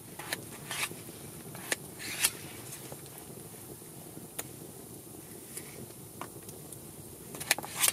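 Knife cutting through a raw potato held in the hand, with chunks dropping into a stainless steel camp pot: a few sharp, irregular clicks and knocks, the loudest near the end.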